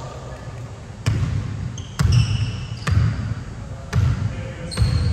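A basketball dribbled on a hardwood gym floor: five bounces about a second apart, with a few short high squeaks between them.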